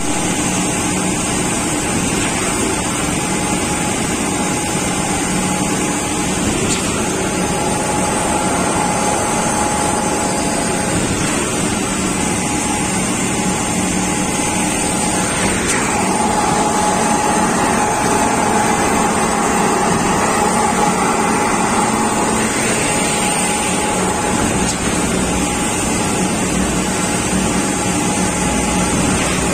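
Construction machinery running steadily during a concrete pour, an engine hum with a steady whine that grows stronger about halfway through.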